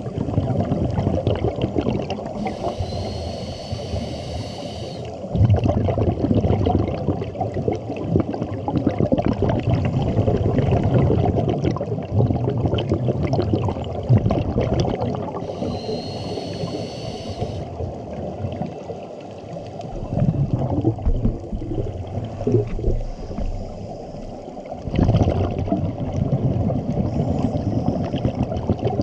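Scuba diver breathing through a regulator underwater. Two hissing inhalations with a faint rising whistle are each followed by long, bubbling exhalations, and another burst of exhaled bubbles comes near the end.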